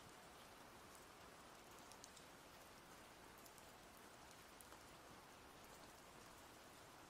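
Faint, steady rain ambience with scattered light ticks of drops.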